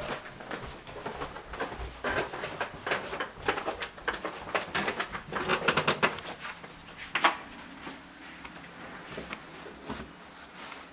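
Footsteps going down a wooden staircase, an uneven run of knocks and clicks, the sharpest about seven seconds in, heard in a small echoing stairwell.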